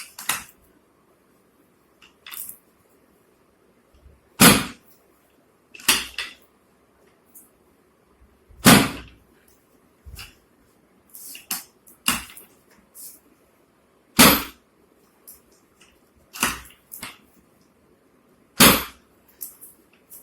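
A dozen or so sharp knocks and thumps, irregularly spaced one to three seconds apart, some louder and fuller than others, typical of hands-on chiropractic treatment.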